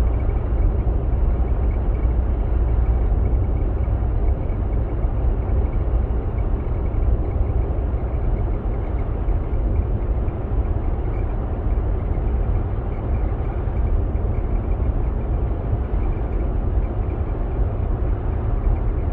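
Steady road and engine noise inside the cabin of a first-generation Kia K5 on the move, with the metal-panel buzzing rattle from the passenger-side dashboard whose cause the owner is trying to find.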